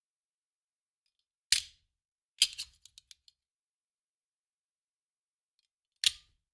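Handgun sound effects: three sharp, short cracks about one and a half, two and a half and six seconds in, the second followed by a few small ticks.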